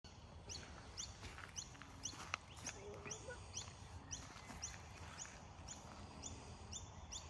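A faint high chirp, a short falling note, repeating evenly about twice a second, with a sharp click a little over two seconds in.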